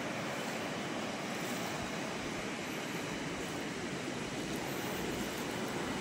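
Flowing river water: a steady, even rush.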